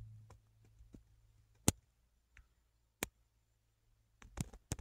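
A few sharp, isolated clicks and taps from hands handling things in a truck cab: single clicks about two and three seconds in, then a quick cluster of them near the end.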